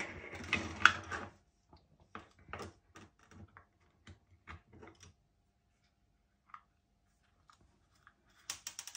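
Hands working the bottom plate of a Chord Mojo DAC loose and lifting it off: handling noise, then scattered small clicks and taps. Near the end comes a quick run of small clattering clicks.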